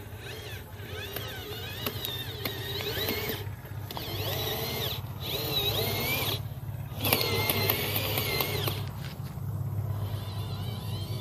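Electric motor and gearbox of a radio-controlled model truck whining, the pitch rising and falling as the throttle changes, over a steady low hum.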